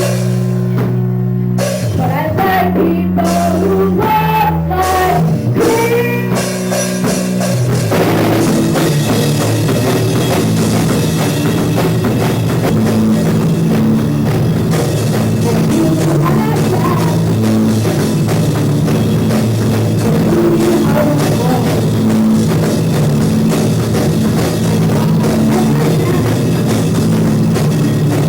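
Loud rock band playing: a few seconds of sparse, held guitar and bass notes, then the full band with drums comes in about eight seconds in and plays on densely.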